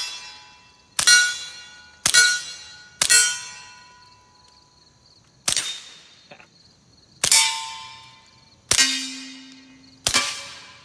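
Suppressed FN 502 .22 LR semi-automatic pistol firing CCI Suppressor rounds, seven shots at uneven intervals, the action cycling on each. Each shot is followed by the clang and ring of a hit steel target.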